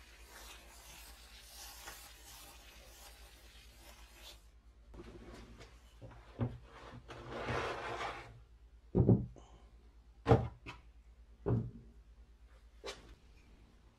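Aerosol parts-cleaner hissing steadily for about four seconds. Then a small mower engine is shifted out of a plastic tub with rubbing and scraping, and set on a wooden bench with four sharp knocks.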